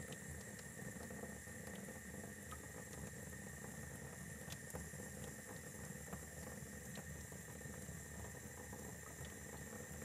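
Faucet running a steady, partly opened stream of water into a sink, fed through an electric tankless water heater that is warming it up from cold. A faint steady high tone runs alongside.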